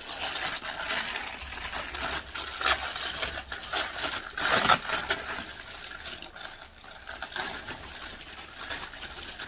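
Plastic packaging rustling and crinkling as soap molds are unpacked and handled, with scattered light clicks and a louder rustle about four and a half seconds in.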